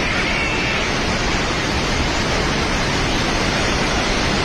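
Flooded Trishuli river rushing in a steady, loud roar of water. A faint high tone rises and falls in the first second.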